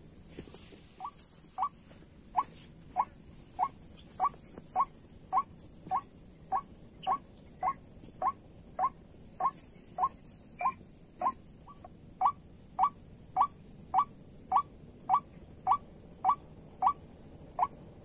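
White-breasted waterhen calling: a steady, regular series of short rising notes, nearly two a second, over a steady high hiss.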